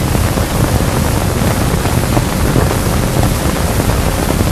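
Steady hiss and rumble of a worn old film soundtrack, with no other sound standing out.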